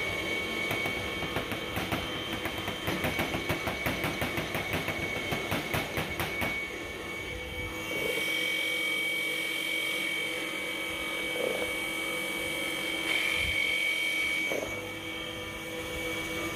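Stainless-steel colloid mill grinding peanuts into peanut butter, its electric motor running with a steady high whine. Dense, rapid crackling and clicking fills the first six seconds or so, then gives way to a smoother, even run.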